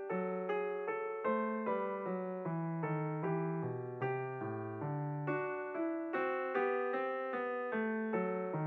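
Background piano music: a steady, even run of notes, a few each second.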